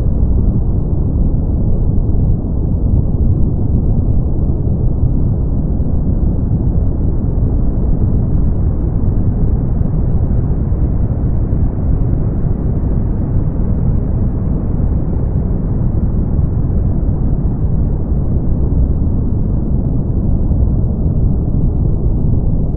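Brown noise: a steady, deep hiss, strongest in the low end with little above about 2 kHz.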